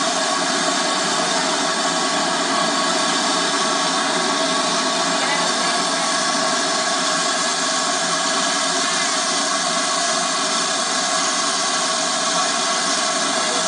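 Steady, unbroken hiss of steam from a standing steam locomotive.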